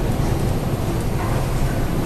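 Steady low rumbling noise, even in loudness, of a ship underway at sea.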